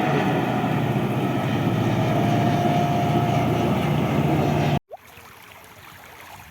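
A motor running steadily at an even pitch, which cuts off abruptly a little under five seconds in, leaving only a faint, quiet background.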